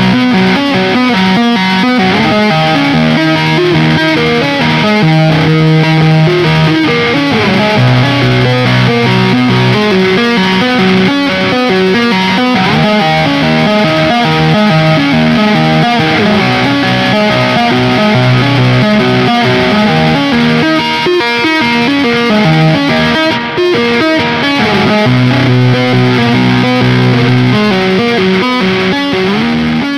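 Electric guitar through stock Ibanez STD C1/C2 passive humbucker pickups, played through heavy distortion. It moves between riffs and sustained low notes held for a second or two.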